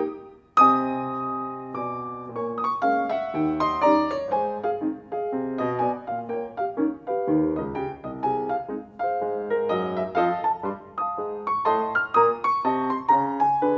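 Solo grand piano playing a rag. There is a brief break just after the start, then a loud chord about half a second in rings for over a second before the playing goes on in quick runs of notes.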